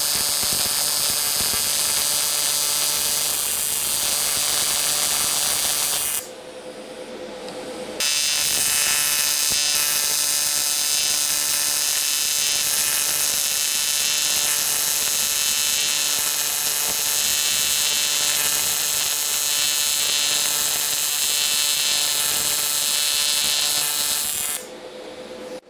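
AC TIG welding arc on aluminum from a PrimeWeld TIG225x buzzing steadily: a smooth, stable arc. It breaks off about six seconds in, strikes again two seconds later and runs until about a second before the end.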